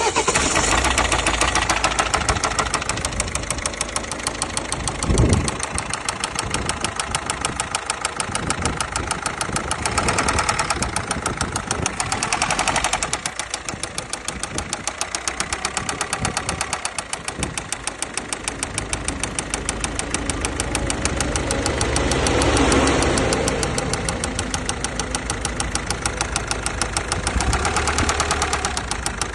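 Volvo V50 1.6 four-cylinder turbodiesel running with a rapid, even diesel clatter, its sound swelling and easing several times, with a short thump about five seconds in. The owner records it for an unidentified extraneous noise.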